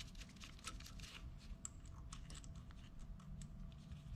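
Faint, irregular light clicks and ticks of small metal parts being handled by gloved hands, as a compression-tester adapter and its hold-down nuts are fitted at a diesel engine's injector port. A low steady hum runs underneath.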